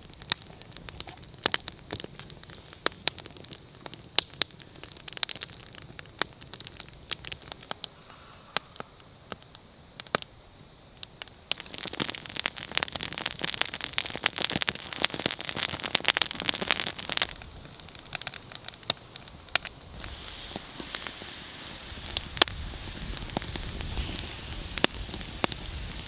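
Wood campfire crackling and popping. The pops are sparse at first and grow dense from about twelve seconds in.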